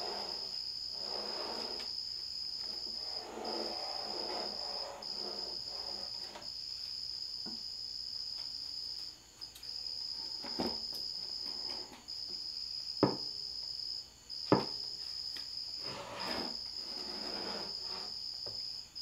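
A cricket trilling: a steady high tone in long stretches with short breaks. Under it, shuffling and a few sharp knocks, the loudest a little after the middle, as a 545RFE transmission's aluminium case is turned over onto its side on a wooden workbench.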